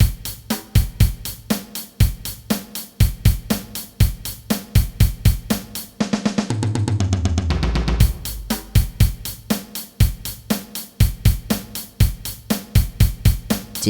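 Drum kit playing a steady rock groove: even hi-hat strokes over bass drum and snare. About six seconds in, a two-second fill runs down the toms, falling in pitch, before the groove comes back in.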